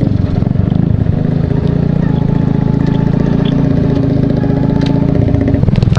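Honda Jazz 50's small single-cylinder four-stroke engine running steadily at low revs as the bike creeps along at walking pace.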